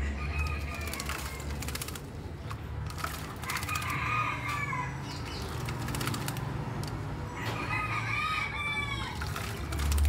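A rooster crowing three times, each crow an arched call about a second long, over the splashing of a crested myna bathing in a water bowl.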